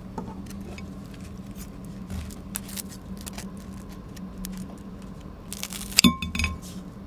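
Kitchen scissors cutting through a crispy breaded pork cutlet (donkatsu), with small clicks of the blades and chopsticks. There is a crunchy snip about six seconds in, the loudest part. A steady low hum runs underneath.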